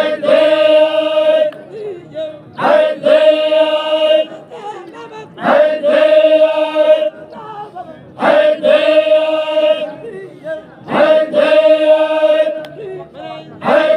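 A group of men chanting a chogan, the Zikri Baloch devotional chant, in unison. Five loud phrases come about every three seconds, each ending on a long held note, with quieter stretches between them.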